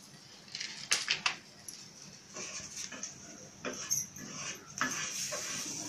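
Spatula and plastic plate clatter: a quick cluster of sharp clicks about a second in, followed by scattered softer knocks and rustles over a faint steady hiss.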